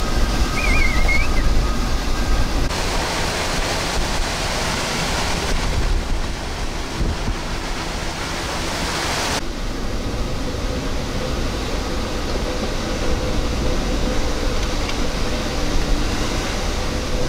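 Hurricane wind and rain, a loud, steady rush with wind buffeting the microphone. The sound changes abruptly about three times as one storm clip cuts to the next.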